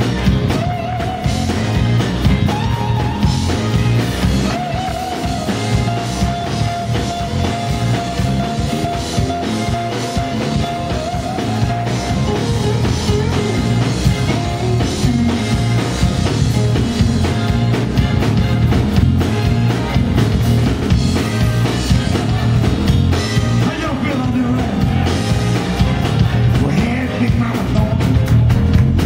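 Live blues band playing, electric guitar over a drum kit. One note is held for several seconds a few seconds in.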